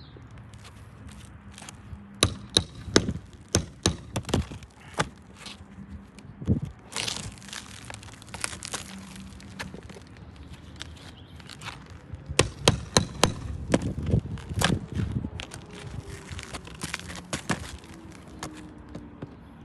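Sharp cracks and clicks of a roofer prying the nails out of roof shingles, in two bursts of rapid strokes with a stretch of scraping and crinkling about seven seconds in.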